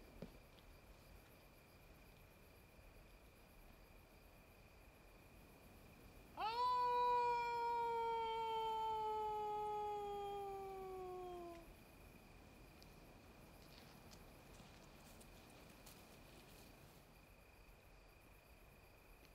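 Wolf howling once, about six seconds in: a long call that rises sharply at the start, then slides slowly down in pitch for about five seconds before stopping. A faint steady high tone runs underneath.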